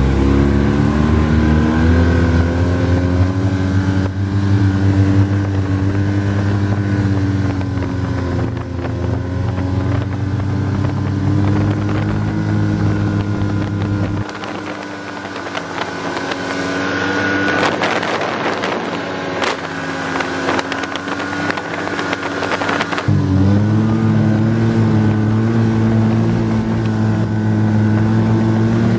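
Snowmobile engine running under way, its pitch rising and falling with the throttle. About halfway through its low note falls away for several seconds under a rush of noise, then comes back in strongly and suddenly.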